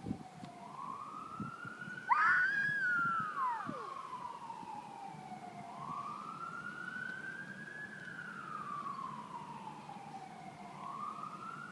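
Emergency siren wailing slowly up and down, one rise and fall about every five seconds. About two seconds in, a loud howl imitating the siren rises and then drops away over a couple of seconds.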